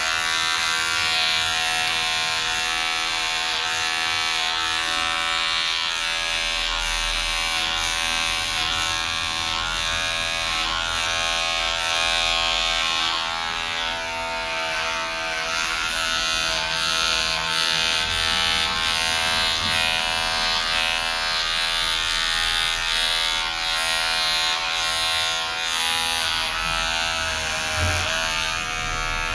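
Electric hair clippers buzzing steadily as they cut short hair close to the scalp; the pitch of the hum dips briefly near the end.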